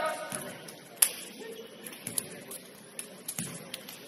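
Basketball gym sounds: a voice calling out fades right at the start, then a single sharp smack about a second in is the loudest sound, followed by a few scattered lighter taps and clicks.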